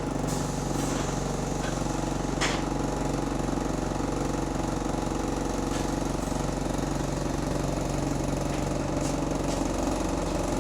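Bus diesel engine running steadily, heard from on board, with a hammering knock typical of the rod knock the bus is known for.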